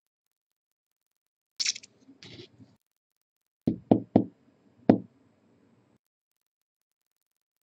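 Four sharp knocks: three in quick succession and a fourth a moment later, after two short hissing sounds.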